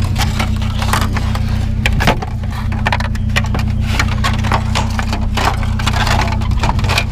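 Scrap items knocking, clattering and scraping as they are shifted and wedged into a pickup's bed, a string of irregular sharp knocks over a steady low engine hum.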